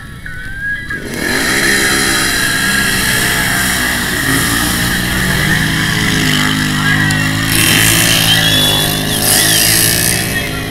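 Racing four-wheeler (ATV) engines revving hard through a mud pit. They come in loud about a second in, and the pitch rises and falls with the throttle.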